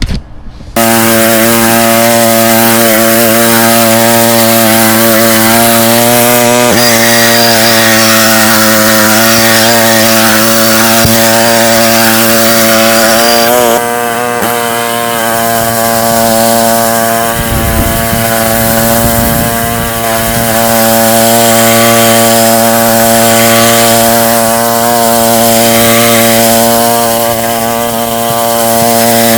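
Westermann moss brush's petrol engine kicking in about a second in and then running steadily at working speed, with the rotating wire brush scrubbing moss off the tarmac.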